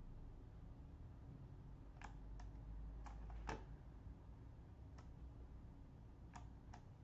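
About seven sharp computer mouse clicks, scattered and irregular, the loudest about three and a half seconds in, over a faint low hum.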